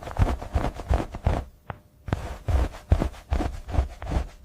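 A run of irregular low thumps and knocks, a few a second, with a brief lull about a second and a half in.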